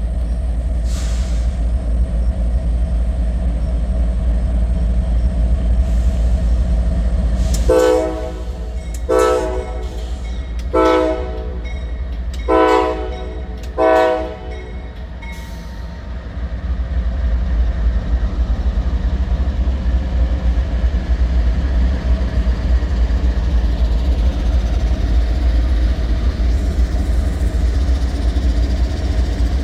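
Norfolk Southern diesel freight locomotive's air horn sounding five blasts about eight seconds in, the first and fourth longer, for a grade crossing. Under it runs the heavy low rumble of the diesel locomotives coming up and passing.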